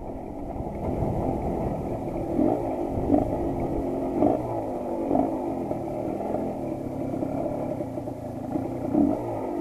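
Suzuki TS125 two-stroke single-cylinder motorcycle engine running, with several short throttle blips that briefly raise the revs.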